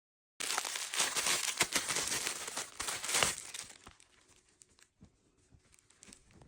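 Packaging crinkling and rustling as it is handled and opened. It starts abruptly, is dense for about three seconds, then dies down to a few light rustles and clicks.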